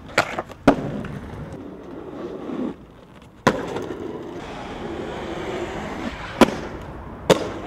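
Aggressive inline skates rolling on rough asphalt, with several sharp clacks of skates striking concrete curbs and ground on grinds and landings: two near the start, one midway and two near the end.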